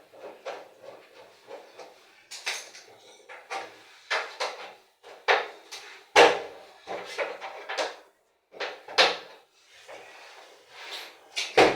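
Irregular knocks, clunks and scrapes of a washing machine's cover panel being worked loose and handled during disassembly, with a sharp bang about six seconds in and another near the end.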